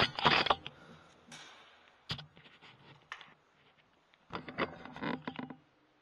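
Handling noise from an air rifle and its scope-mounted night-vision recorder being moved and settled: short bursts of scraping and knocking, with a sharp click about two seconds in and a second cluster of scrapes about four seconds in.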